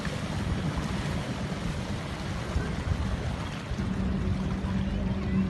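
Jet ski engine running as it speeds across choppy sea, with wind buffeting the microphone; a steady engine hum comes in about two-thirds of the way through.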